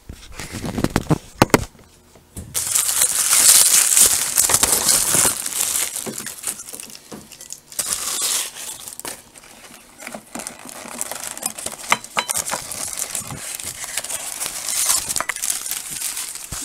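Paper fast-food burger wrappers crinkling and rustling as the burgers are unwrapped and handled, with a few clicks and low thuds.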